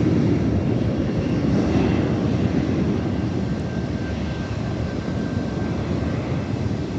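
Passenger jet engines running: a steady rumbling noise that slowly fades as the aircraft moves off, with a faint thin whine in the middle.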